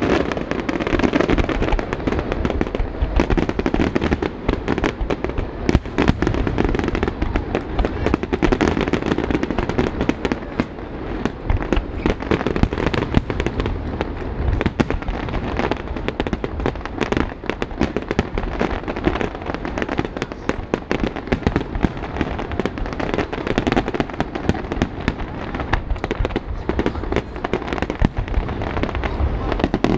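Fireworks display in a dense, continuous barrage: many sharp aerial shell bursts and crackles a second, overlapping one another, with no pause.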